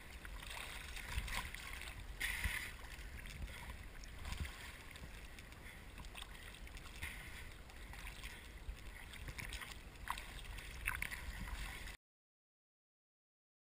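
Choppy lake water sloshing and splashing against a camera held at the surface, with a low rumble underneath and irregular brighter splashes. The sound cuts off abruptly about two seconds before the end.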